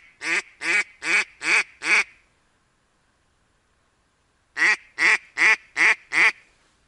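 Duck quacking in two runs of loud, evenly spaced quacks, six and then five, about two and a half seconds apart.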